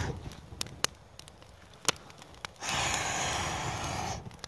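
A person blowing a long, steady stream of air onto a small campfire through fingers held together, the "dragon breath" technique, with a rushing hiss. A few sharp pops from the burning kindling come in the pause before the breath.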